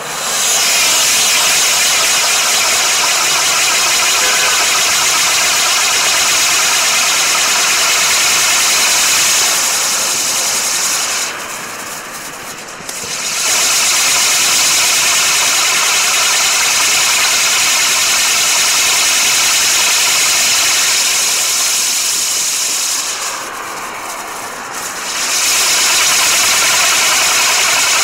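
Spinning Catherine wheel firework giving off a loud, steady hiss as its jets of sparks burn. The hiss drops away for a moment twice, about eleven and twenty-three seconds in, as one stage of the three-wheel pack burns out and the next one catches. The colours change from green to red.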